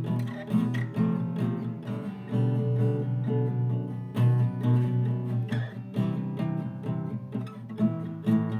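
Instrumental passage of a home-recorded rock song: strummed guitar with a lead guitar line over bass.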